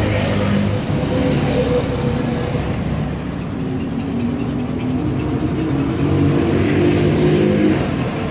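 Road traffic: motor vehicle engines running close by, loud and continuous, their engine note shifting as vehicles pass.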